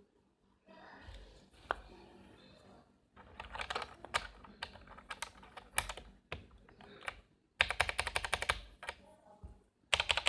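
Typing on a mechanical keyboard in bursts of rapid key clicks, as a sound check of ABS against PBT keycaps. The clicking starts a few seconds in and is densest and loudest near the end.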